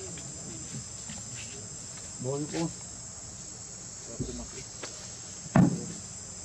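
Steady high-pitched chorus of insects, with a brief voice-like call about two seconds in. A single sharp knock comes near the end and is the loudest sound.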